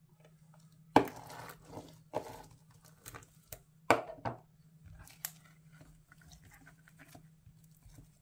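Huge black glitter slime being cut with a pizza cutter: a string of sharp sticky crackles and pops, loudest about a second in and again just before four seconds, then fewer and fainter. A steady low hum runs underneath.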